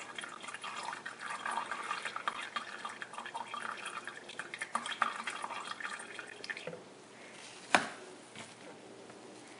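Dark, dirty brake fluid trickling and dripping into a clear plastic jug, with many small splashes; it stops about seven seconds in. A single sharp knock follows near the end.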